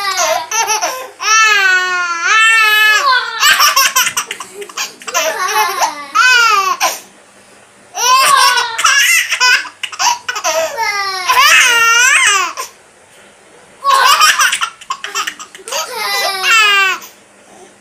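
A baby laughing in repeated bouts of high-pitched laughter, the pitch sliding up and down, with short pauses between the bouts.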